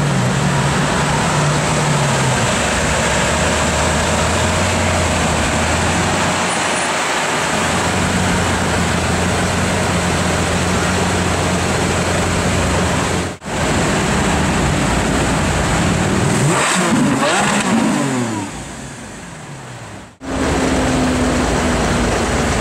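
Lamborghini Aventador V12 running at a steady idle, then revved hard several times, the pitch sweeping up and falling back quickly. It settles to a steady idle again near the end, and the sound breaks off for a moment twice.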